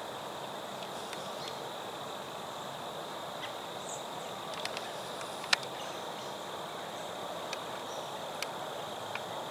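Steady chorus of crickets and other insects, a constant high drone. A few sharp clicks break in, the loudest about five and a half seconds in.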